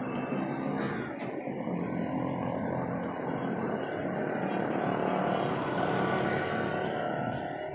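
Steady road traffic noise on a busy city street, with vehicle engines running.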